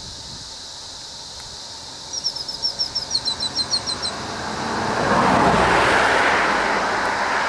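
A bird gives a rapid string of about a dozen short chirps about two seconds in, over a steady high hiss. Then the noise of a motor vehicle rises and becomes the loudest sound, easing slightly near the end.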